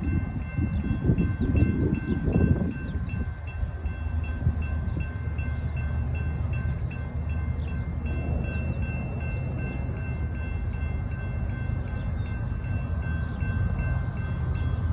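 Railroad crossing signal bell ringing steadily and quickly over the low rumble of an approaching diesel freight train. Gusts of wind hit the microphone in the first three seconds.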